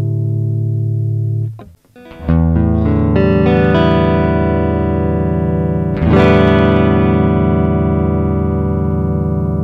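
Clean electric guitar, a Telecaster with Lollar pickups, played straight into an audio interface with no amp or effects. A ringing chord is damped about a second and a half in. Notes are then picked one after another to build a new chord, and a full strum about six seconds in rings out.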